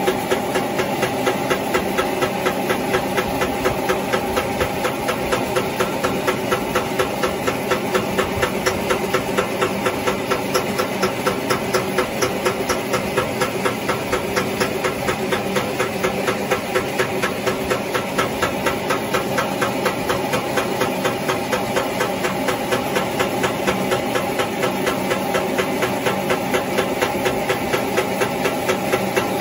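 A small engine running steadily at idle, with a regular knocking pulse of about three beats a second.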